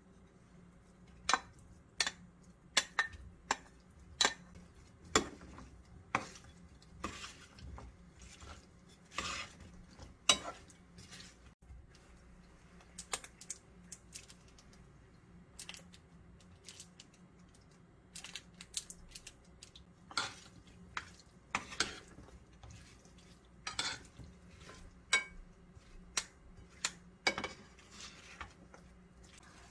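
Metal spoon and wooden spatula clinking and scraping against a metal mixing bowl while chopped fruit, egg and ham are tossed with mayonnaise: a string of sharp, irregular clinks, about one or two a second.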